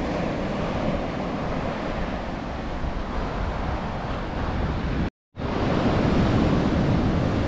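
Gulf surf breaking and washing up a sandy beach, with wind buffeting the microphone. The sound cuts out completely for a moment a little after five seconds in, then the surf comes back slightly louder.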